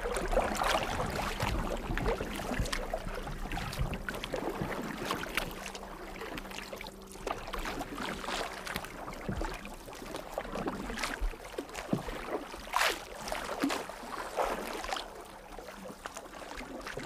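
Canoe paddles dipping and splashing in the water at irregular strokes as the canoe is paddled along.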